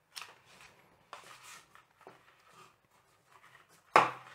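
Faint handling noises: soft rustles and light clicks from cables and gadgets being moved by hand, with a louder sudden sound near the end.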